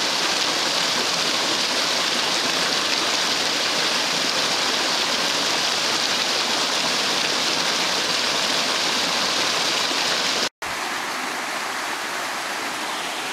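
Creek water rushing steadily through a narrow crack in the sandstone streambed, a loud even hiss. Near the end it cuts out for an instant and comes back a little quieter.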